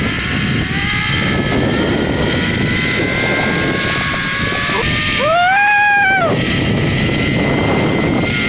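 Zipline trolley pulleys running along the steel cable, with wind on the microphone: a loud steady rushing with a thin whine that rises a little in the first second or two. About five seconds in, a high tone rises and falls for about a second.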